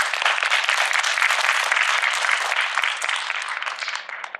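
An audience in a hall applauding, many hands clapping together, fading away near the end.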